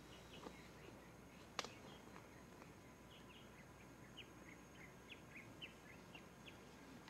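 Near silence with faint, short bird chirps, a run of them from about three to six and a half seconds in, and one sharp click about a second and a half in.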